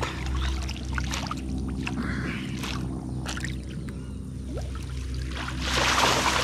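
Water splashing and sloshing loudly for about a second near the end, over a steady low hum, with light splashes and clicks before it.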